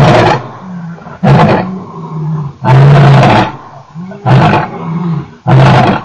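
Male lion roaring out of view: a series of deep, loud grunting roars about every one and a half seconds, so loud that they overload and distort the microphone.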